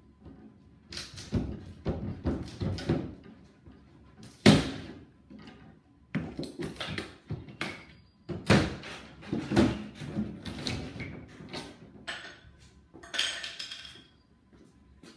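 Irregular knocks, thuds and clatter of wood and tools as a wooden shipping crate is worked open, the loudest knock about four and a half seconds in. A brief rasping noise comes near the end.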